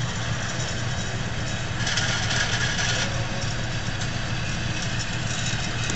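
Steady low mechanical hum with an even hiss of moving air over it, from indoor firing range machinery; no gunshots.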